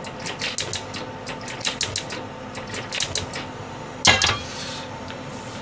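Lid of a Vitacraft stainless steel pot rattling rapidly on its rim, pushed up by steam: the sign that the contents have come to the boil. About four seconds in, a gas hob burner lights with a single loud click.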